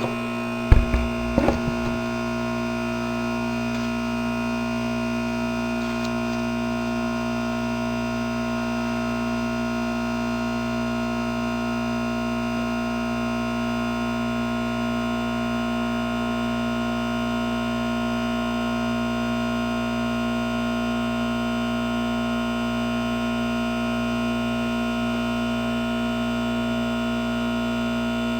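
2008 Goodman heat pump humming steadily in defrost mode, a compressor drone made of several fixed tones. A few knocks about a second in.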